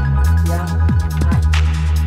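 Background music with a heavy bass line and a drum beat; deep bass notes slide down in pitch a few times.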